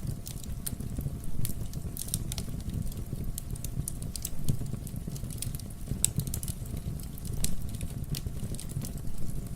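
Wood fire crackling, with many small pops and ticks over a steady low rumble of the burning logs, and a louder pop every second or two.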